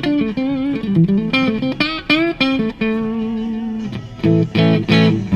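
Gibson Les Paul Goldtop electric guitar played through a Blackstar tube amp on its neck pickup. It plays a single-note lead line with string bends and vibrato, then strummed chords from about four seconds in.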